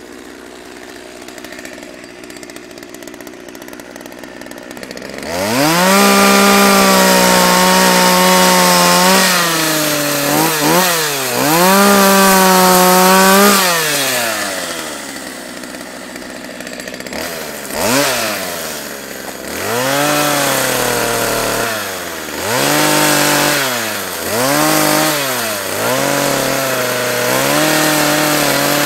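Two-stroke gas chainsaw idling quietly, then revved to full throttle about five seconds in and cutting into a log, its pitch rising and dropping with the throttle several times as it works the cut.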